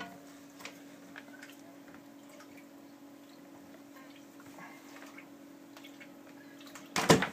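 Faint, scattered clicks and scrapes of a plastic filter-housing wrench working against a tight reverse osmosis filter housing, with a loud short burst near the end.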